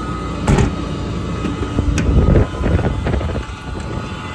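Clicks and knocks from the metal compartment doors and drawers of a truck's service body being handled, with wind buffeting the microphone.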